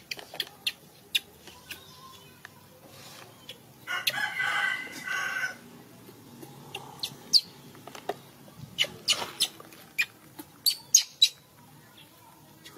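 High-pitched animal calls: a string of short, sharp squeaks and chirps, and one longer, louder call about four seconds in.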